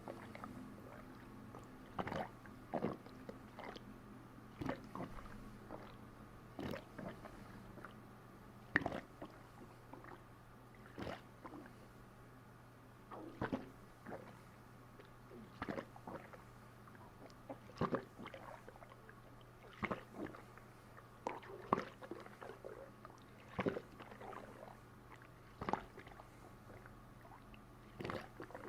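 Stomach and bowels gurgling as a fist presses down on the abdomen: short wet gurgles and squishes, one every one to two seconds.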